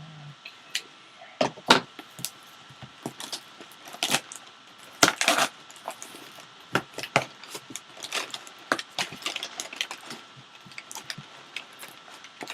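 A sealed cardboard box and its packaging being handled and opened: irregular clicks, taps and short rustles, loudest about a second and a half in and again around five seconds.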